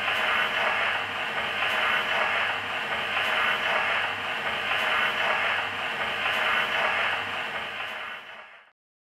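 Surface hiss and crackle of an old shellac record on a wind-up patephone, a narrow, muffled hiss that swells and eases in a slow cycle with faint repeating clicks, the sound of the needle in the groove before the music starts. It fades out near the end.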